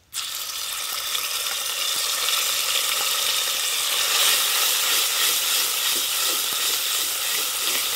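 Wet ground spice paste hitting hot oil in a clay pot and sizzling, starting suddenly and carrying on steadily as a wooden spatula stirs it.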